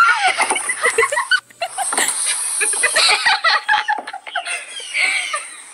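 People laughing and squealing, with wavering high voices and no clear words.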